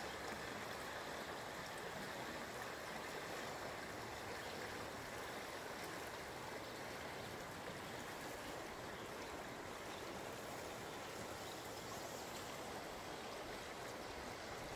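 A creek flowing steadily, an even rush of water.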